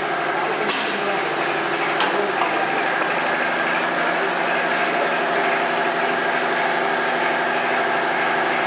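Magnetic particle inspection bench running a wet cycle: a steady machine hum from its motor and ink pump, with two short clicks in the first two seconds.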